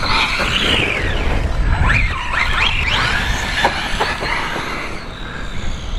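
Brushless motor of a VKAR Racing Bison V2 RC truggy (3670 motor, 120 A ESC) whining at full-throttle bursts, its pitch sweeping up as it accelerates and dropping sharply when the throttle is let off, several times in a row, over a steady low rumble.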